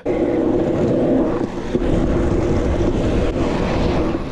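Stunt scooter wheels rolling fast over wet asphalt: a steady hiss and rumble with a constant hum, and wind buffeting the microphone.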